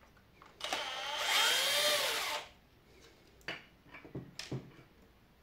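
Cordless drill-driver spinning for about two seconds, backing a small screw out of a circuit-board housing, its motor whine rising and then falling away. A few light clicks follow.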